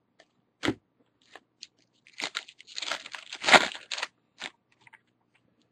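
Wrapper of a baseball card pack crinkling and crackling as it is torn open and handled: a single click about a second in, then a burst of crinkling from about two seconds in, loudest around three and a half seconds, dying out near the end.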